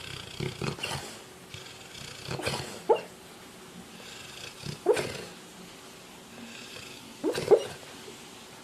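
A sleeping dog making short muffled yips and whimpers, with quick slides in pitch. The three loudest come about every two and a half seconds.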